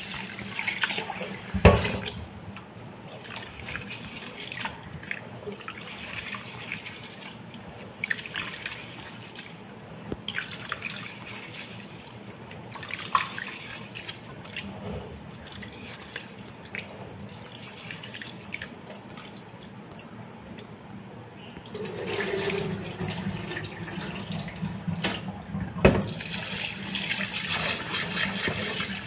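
Rice being washed by hand in a stainless steel bowl in a sink: water sloshing and grains swishing as the hand stirs, with the tap running into the bowl at the start and again near the end. Two sharp knocks stand out, one early on and one near the end.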